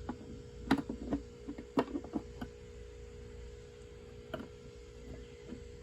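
A hand pick clicking and scraping against the plastic inner cap of a Honda Pilot tail light assembly as the cap is worked round: a handful of light, scattered clicks, most in the first couple of seconds and one more after about four seconds, over a steady low hum.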